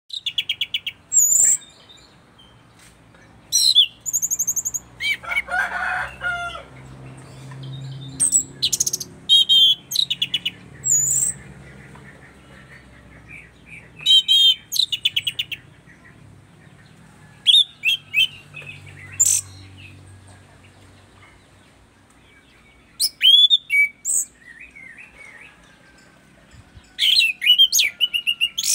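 Caged orange-banded thrush (punglor, anis cendana) singing vigorously: loud bursts of varied high whistles, trills and chattering notes, each a second or two long and separated by short pauses.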